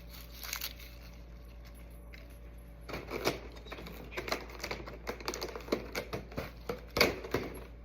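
Fresh spinach leaves being torn up by hand: a quick, irregular run of crisp snaps and rustles starting about three seconds in.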